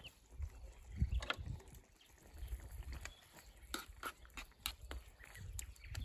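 Metal tongs clicking and scraping against a frying pan of stew as it is stirred, in short scattered clicks, over low irregular rumbling.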